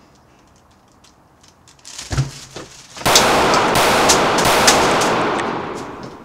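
Gunfire sound effect: a few sharp shots about two seconds in, then a long burst of rapid gunfire that lasts about three seconds and fades out near the end.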